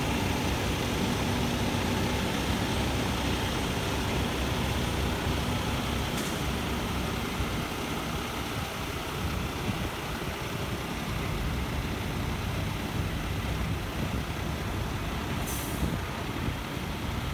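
Heavy-haul semi truck's diesel engine running under load as it slowly pulls a multi-axle trailer with a heavy load past, a steady low rumble with tyre and road noise that fades a little. Two short high hisses, about six seconds in and near the end.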